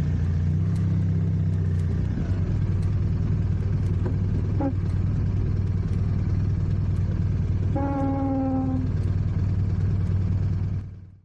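BMW R 1250 RT's two-cylinder boxer engine running steadily at low town speed, heard from on the bike. A short steady pitched tone lasts about a second near eight seconds in, and the sound fades out just before the end.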